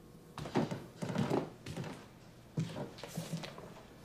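Footsteps and a series of light knocks and thuds in a small room.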